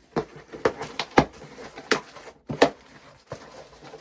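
Small scissors cutting open a cardboard shipping box: a run of irregular sharp snips and clicks, the loudest about a second in and again past the middle.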